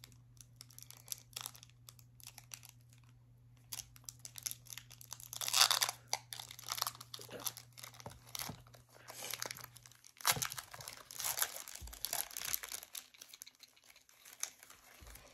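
Foil Pokémon booster pack wrapper crinkling and being torn open, in irregular crackling bursts, loudest about five to six seconds in and again from about ten to thirteen seconds in.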